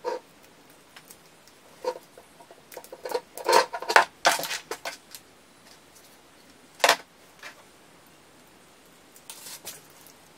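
Power cords and an AC adapter being unwrapped and handled: cable plugs and twist ties click and rustle in irregular bursts, busiest from about two to five seconds in, with a single click about seven seconds in.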